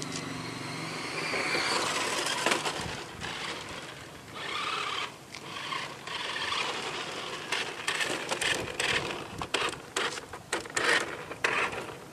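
Sanzuan V Max Turbo 4WD RC car running on gritty asphalt: a steady buzz from its electric motor and tyres, then, from about halfway through, a quick run of sharp clicks and scrapes as it comes close over the grit.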